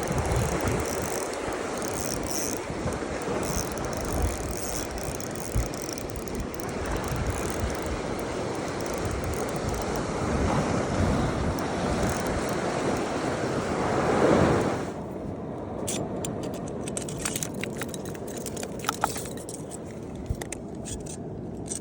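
Wind buffeting the microphone over the wash of sea surf, swelling to its loudest about fourteen seconds in. After that it drops away and scattered sharp clicks and taps come through.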